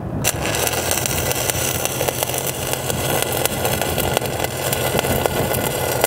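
Stick-welding (SMAW) arc struck on a low-hydrogen 7018 rod and then crackling and spitting steadily as a fillet weld is run on steel, over a steady engine hum.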